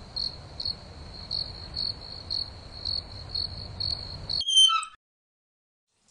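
Crickets chirping: a steady high trill with louder chirps about twice a second. About four and a half seconds in, it is cut off by a short, loud squeak of a shower's hot-water tap handle being turned, and then the sound stops.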